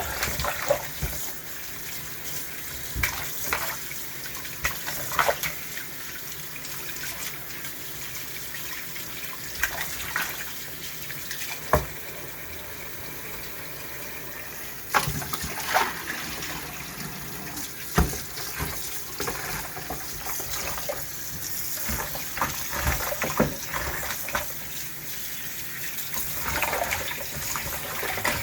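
Kitchen tap running into a sink while raw chicken pieces are rinsed by hand, with scattered sharp knocks.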